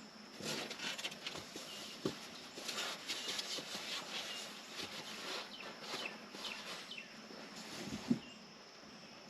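Faint rustling and scraping handling noises, with a dull knock about two seconds in and another near the end, and a few faint bird chirps.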